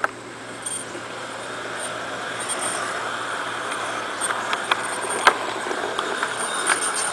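LGB garden-scale model streetcar running along the track with a steady rolling whirr that grows louder as it comes closer, and several sharp clicks from its wheels on the rails.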